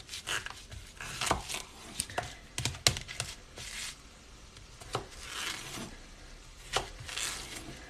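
Kitchen knife slicing lengthwise through zucchini on a cutting board: irregular sharp taps and knocks as the blade goes through and meets the board.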